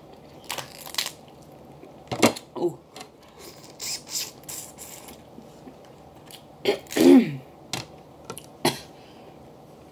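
Snow crab legs cracked and snapped apart by hand, a series of sharp shell cracks and clicks, with wet sucking of the meat from a leg. About seven seconds in, a short cough is the loudest sound.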